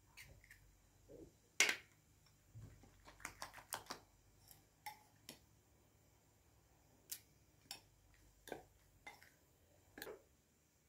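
Scattered sharp taps and clicks of a metal spoon against a glazed ceramic bowl as chopped herbs and a raw egg are mixed: one louder clack about one and a half seconds in, a quick run of taps around three to four seconds, then single taps every second or so.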